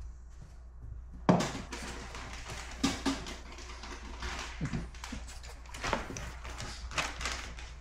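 A run of rustles, knocks and brief scuffs in a small room, the loudest about a second in, with a couple of short low grunts from a French bulldog.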